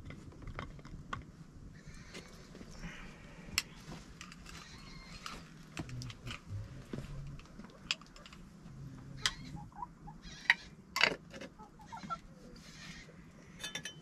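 Goats bleating off and on, over sharp clicks and knocks of metal spoons and dishes. The loudest clicks come about ten and eleven seconds in.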